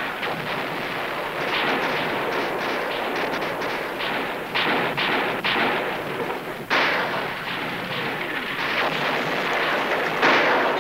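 Massed Civil War musket fire: a continuous crackle of many overlapping shots, with louder single reports about four and a half, seven and ten seconds in.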